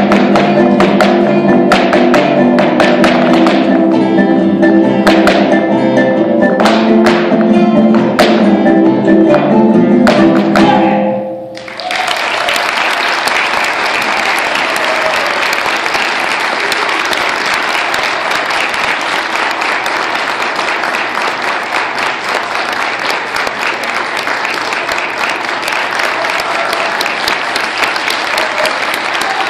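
Guitar ensemble playing a fast polka, with the dancers' sharp shoe taps over it. The music stops about eleven seconds in, and an audience applauds steadily for the rest.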